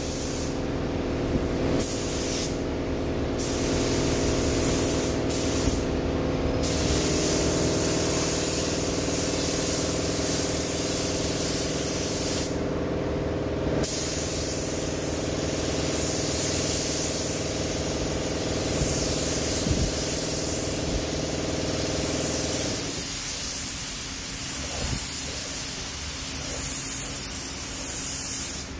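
Gravity-feed spray gun hissing steadily as it sprays the blue colour coat onto a bus panel, with a few brief breaks in the first half as the trigger is let off. Underneath is a steady mechanical hum that stops about three-quarters of the way through.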